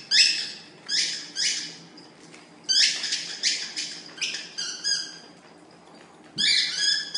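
Puppies squealing and yelping in play: a string of short, high-pitched squeals, often two or three in quick succession, with a brief lull about two-thirds of the way through before a last run near the end.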